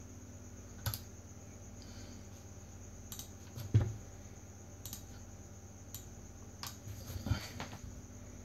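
Scattered clicks from a computer mouse and keyboard, with one louder knock a little under four seconds in, over a faint steady electrical hum.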